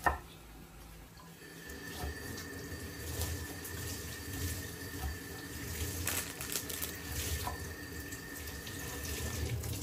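A click, then water running from a kitchen tap into a sink, a steady rush of water.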